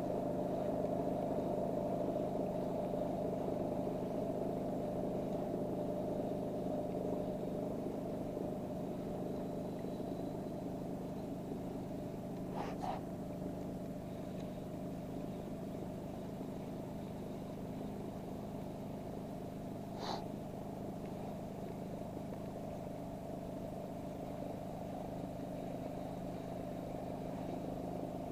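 Small single-cylinder petrol outboard engine running steadily, pushing the boat along at an even pace. Two brief sharp high-pitched sounds cut in, about halfway through and again a few seconds later.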